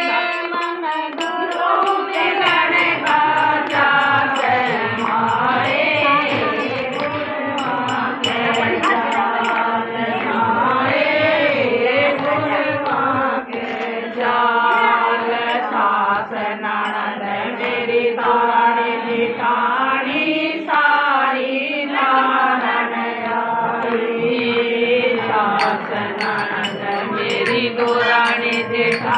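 A group of women singing a Hindi devotional bhajan (guru bhajan) together in unison, in a chant-like melody, with hand-clapping keeping a steady beat.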